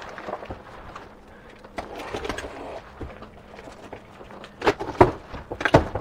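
Cardboard box of a washing machine being opened by hand: cardboard rustling and scraping as the flaps are worked open, with a few sharp knocks near the end.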